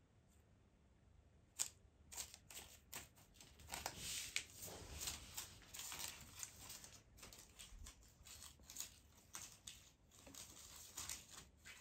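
Dry crackling and rustling with many sharp, irregular clicks, starting about a second and a half in and running on unevenly.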